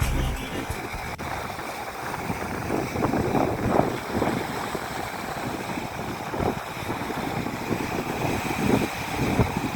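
Sea waves washing onto the shore, surging and easing irregularly, with wind buffeting the microphone.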